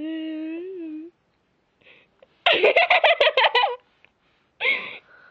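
A girl's voice holds a drawn-out, sing-song sound for about a second, then breaks into a quick run of giggling laughter about two and a half seconds in, with one more short laugh near the end.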